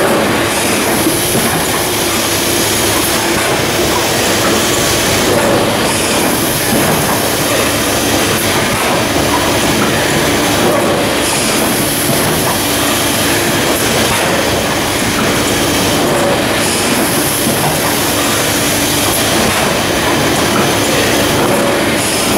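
Packaging machine running in production, with a thermal transfer overprinter on an XY traverse mounted over it: a steady, dense mechanical clatter over a low hum. The high hiss drops out briefly about every five seconds.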